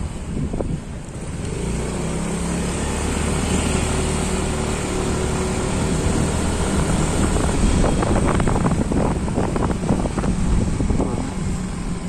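Motorcycle engine running steadily while riding, with wind rumbling on the microphone, gustier in the second half.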